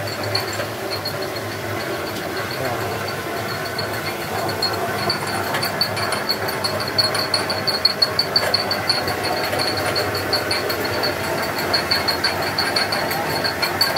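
Small hydroelectric turbine and belt-driven generator running under water pressure just let in by opening the supply valve: a steady mechanical running noise with a high, rapidly pulsing whine that grows stronger about five seconds in.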